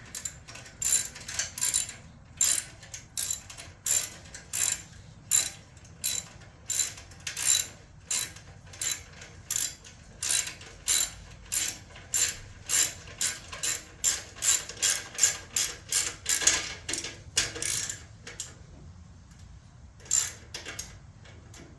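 Hand ratchet wrench clicking in quick, regular strokes, about one and a half to two a second, tightening the exhaust clamp on a Vance & Hines slip-on muffler. The strokes stop near the end, then a few more follow.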